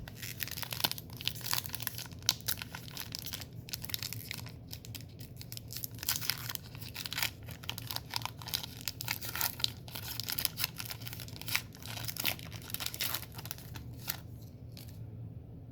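Baseball trading cards and their pack being handled and shuffled: a quick, irregular run of rustling, crinkling and card-on-card scraping that stops about a second before the end.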